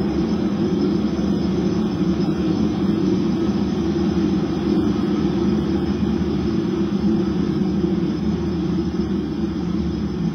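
Dance accompaniment: a loud, steady low rumbling drone with no beat or melody.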